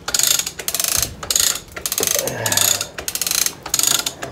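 Ratchet wrench worked in short strokes, each stroke a quick run of pawl clicks, about six runs in a row, while a fastener on an outboard motor's control cable is undone.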